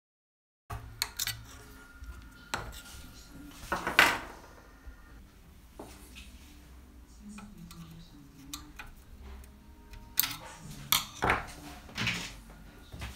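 Small metal parts of a Grundig 3060a valve radio's front panel clinking, clicking and knocking as they are handled and taken apart by hand, with scattered single knocks, the loudest about four seconds in and a cluster of several near the end.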